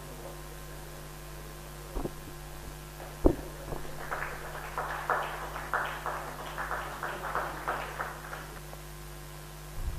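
Steady electrical mains hum, with two sharp thumps about two and three seconds in, the second louder, then a few people clapping for about four seconds.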